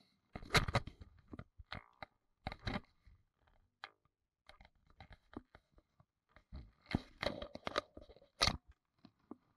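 Irregular knocks, clicks and scraping handling noises in a fishing boat, loudest in a cluster about seven to eight and a half seconds in.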